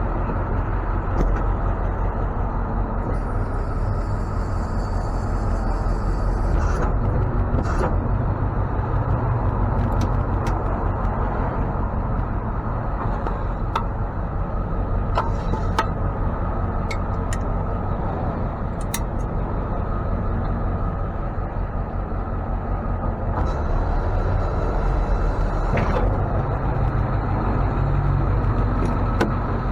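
Ford F550 tow truck's engine running steadily, with a few short clicks and two brief spells of hiss.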